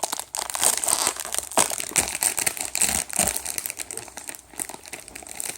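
Plastic snack wrapper crinkling and rustling in a dense run of crackles as it is worked open.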